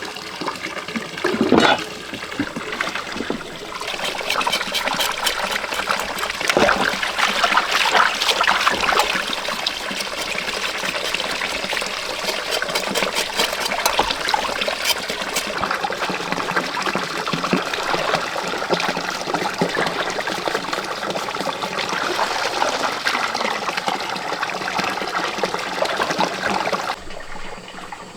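Water running and splashing steadily, with small clatters through it, easing off near the end.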